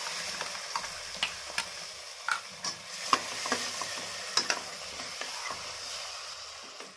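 Tomato puree sizzling as it hits hot mustard oil and fried spices in a steel kadhai, while a steel spatula stirs it in, scraping and clicking against the pan now and then. The sizzle eases toward the end.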